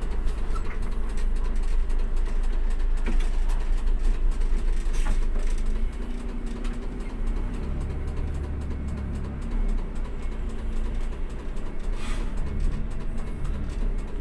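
Coach bus diesel engine running at low revs, heard from inside the driver's cab as the bus is manoeuvred slowly for parking. The low rumble eases a little about six seconds in.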